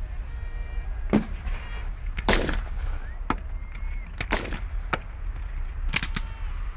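Scattered black-powder gunfire in a Civil War battle reenactment: sharp shots about once a second. Two heavier reports, about two and four seconds in, have longer rumbling tails.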